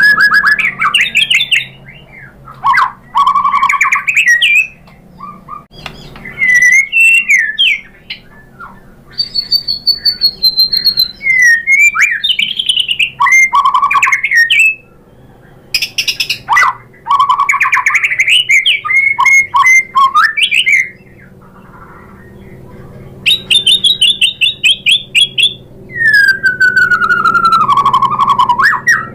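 White-rumped shama (murai batu) in agitated full song, pouring out its repertoire of mimicked phrases: swooping whistles, harsh notes and rapid trills in bursts with short pauses between them. Near the end comes a rapid high trill followed by a long falling whistle.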